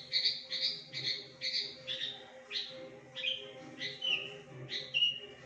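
Javan bush lark (branjangan) singing: a run of short, harsh notes about two a second, turning to a few down-slurred whistles in the second half, part of a varied song that mimics other birds.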